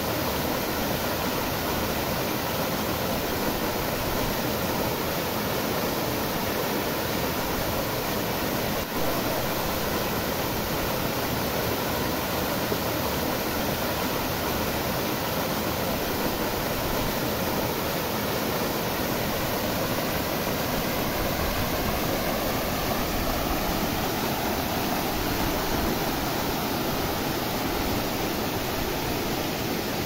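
Waterfall pouring over rock into a pool: a steady rush of falling water, with a brief dip about nine seconds in.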